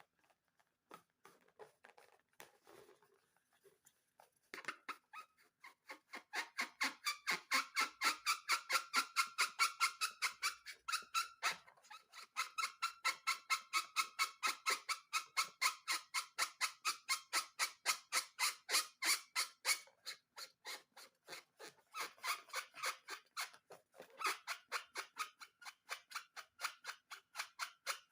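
Balloon slime being squeezed and worked by hand, making short rhythmic squeaks at about three or four a second. The squeaking starts about four and a half seconds in and goes on steadily, easing a little after about twenty seconds.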